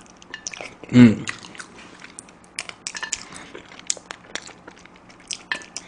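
Close-miked chewing of spicy chicken feet: many short crunches and clicks of skin, cartilage and small bones, a foot whose bones are too thick to chew through. A brief vocal sound about a second in.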